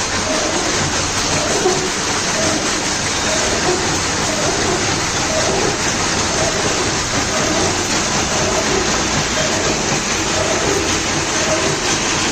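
Gear-cutting machine running steadily while cutting a 3-module, 40-tooth worm gear: a constant hiss with a faint tone that recurs roughly once a second.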